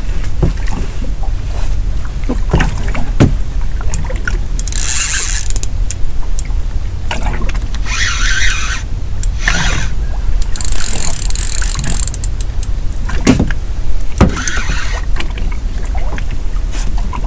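Small boat under way: the engine runs with a steady low rumble and wind buffets the microphone, while about four rushes of water spray off the hull.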